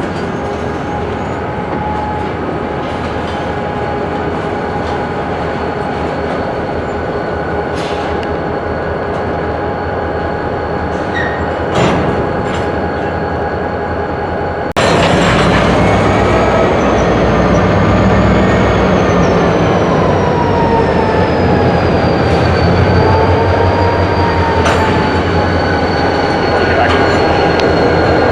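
Freight cars rolling on yard track during switching, with a sustained wheel squeal over a low rumble. About halfway through it suddenly gets louder, and the squeal wavers up and down in pitch.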